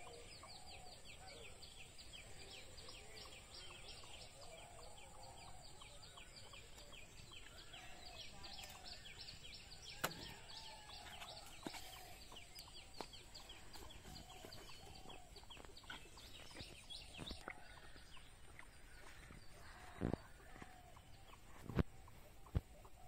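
Outdoor ambience: a rapid series of short high bird chirps for most of the time, with faint low clucking calls. A few sharp knocks near the end.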